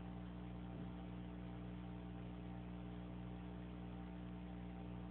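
Steady low electrical hum with a faint hiss underneath: the recording's background noise, with no other sound.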